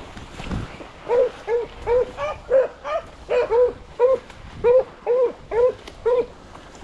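A beagle hound giving tongue on a trail: a steady run of short barks, about two a second, starting about a second in and stopping shortly before the end.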